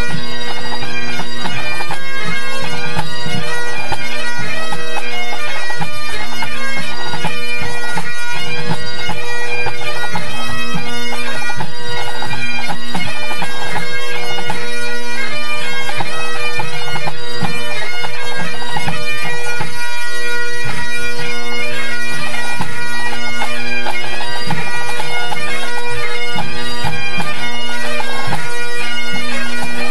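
A full pipe band's Great Highland bagpipes playing together at tune-up, loud, the chanters' melody running over steady droning.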